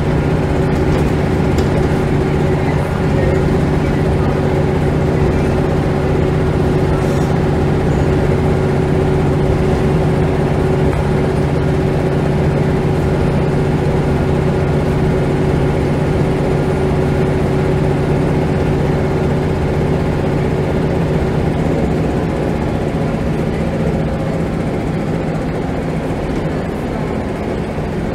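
Scania L94UB bus engine and drivetrain running steadily, heard from inside the saloon as a constant loud drone. It eases slightly over the last few seconds.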